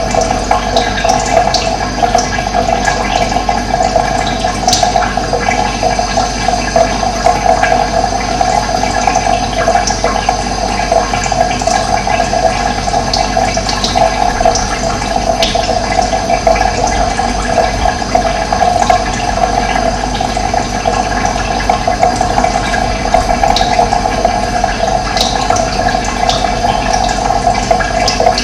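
Running water, a steady loud rush like a stream or small waterfall, with a few short, high bird chirps scattered over it.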